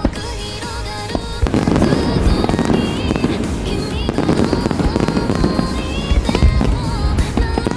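Aerial fireworks bursting in a dense barrage of bangs and crackles, starting about one and a half seconds in, over background music.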